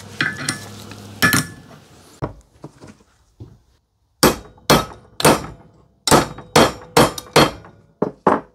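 Hammer blows on a steel Honda ATV A-arm clamped in a bench vise, driving out the old worn pivot bushing and bearing. A few lighter knocks come first, then after a short pause a quick run of about nine hard metal strikes, roughly two a second, each leaving a faint ring.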